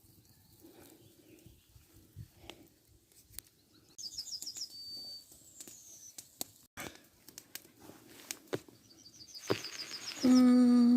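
A songbird singing quick high trills twice, among scattered light clicks and taps. Near the end a person hums a loud, held 'mmm' that rises in pitch.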